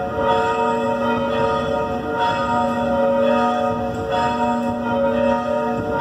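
Church bells rung by hand with ropes: several bells of different pitch struck again and again, their tones ringing on and overlapping.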